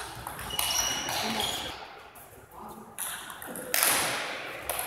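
Table tennis rally: the ball clicking off rubber paddles and the table about once a second, the loudest a hard hit nearly four seconds in that rings on in the hall. A few short high squeaks from shoes on the sports floor come between the strokes.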